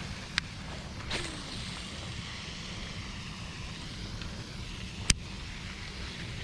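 Wind rumbling on the microphone outdoors, a steady low noise, with two short sharp clicks: one just after the start and one about five seconds in.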